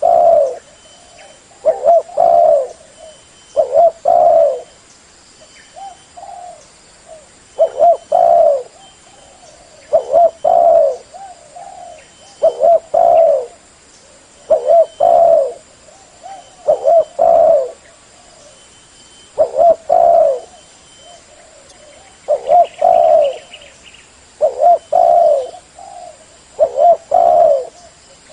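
Spotted dove (terkukur) cooing loudly, the same short phrase of a few quick notes repeated about every two seconds.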